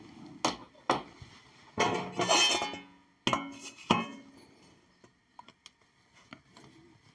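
Metal clinking and clatter: a wrench working the drain plug on a lathe headstock, and metal knocking against the round sheet-steel drip pan beneath it. A burst of clatter comes about two seconds in, then two sharp, ringing knocks about a second later, then a few faint ticks.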